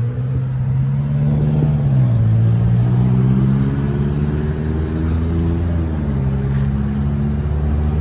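Gasoline pump dispensing fuel into a car's tank: a steady low hum whose pitch dips and recovers twice, over a light hiss.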